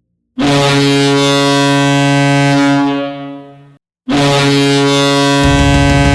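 Hockey goal horn sounding without reverb in two long blasts: the first tapers off after about three seconds, and after a brief gap the second starts. Near the end, drum-heavy goal music with a strong bass comes in under the horn.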